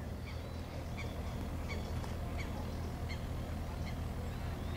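A bird calling over and over, a short sharp call about every 0.7 seconds, over a steady low rumble.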